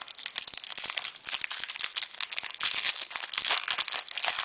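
Foil booster pack wrapper crinkling and tearing as it is opened by hand, a dense irregular crackle.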